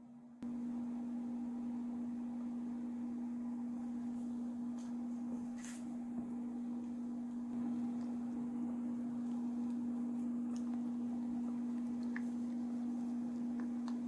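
A steady low hum sets in about half a second in, with a few faint clicks from a spatula stirring batter in a glass bowl.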